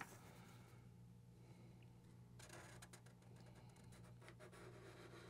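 Faint scratching of Sharpie markers drawing lines on paper, clearer in the second half, over a low steady hum.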